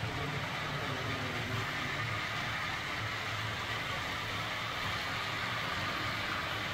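HO-scale model train running on layout track: a steady mechanical whir and rolling hiss with a low hum underneath.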